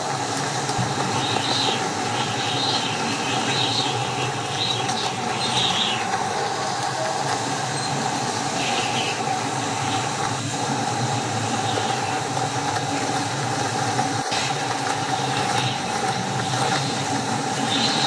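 Strong storm wind blowing steadily, with a constant whistling tone under it and short hissy gusts now and then.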